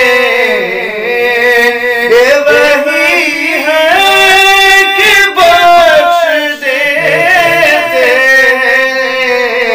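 Urdu devotional naat sung by a solo voice in long, held notes that bend and waver, with no clear words.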